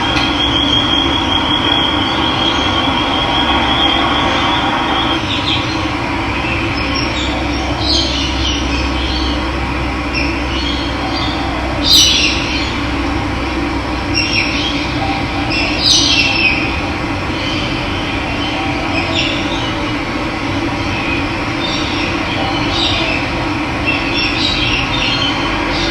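Steady rush of running water, with birds chirping now and then over it. A high, steady trill runs through roughly the first five seconds, and a loud chirp comes about twelve seconds in.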